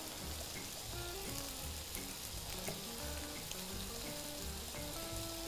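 Sliced mushrooms frying in oil in a pan, a steady faint sizzle, under soft background music with a simple stepping melody.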